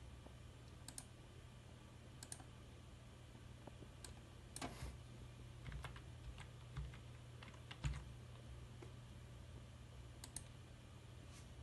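Computer keyboard keys tapped irregularly, single taps and short runs of clicks, the loudest a little past the middle, over a steady low hum.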